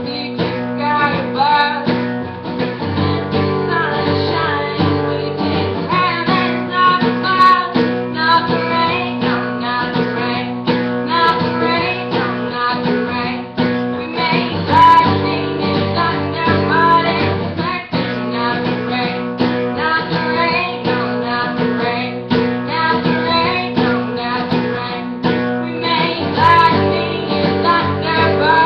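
A woman singing a folk song while strumming an acoustic guitar, recorded through a webcam's microphone.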